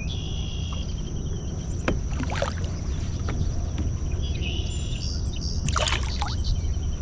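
Steady low noise of a kayak on the water, with a few sharp knocks against the boat and two short high buzzing calls.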